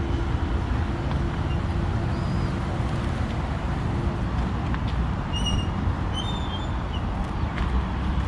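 Steady low background rumble with a few short, high chirps a little past midway.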